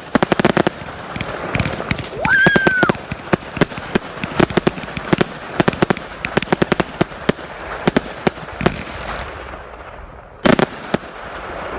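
A 100-shot consumer firework cake firing a rapid string of sharp cracks, several a second, with a brief rising whistle about two seconds in. The shots thin out toward the end, with one last loud bang near the end.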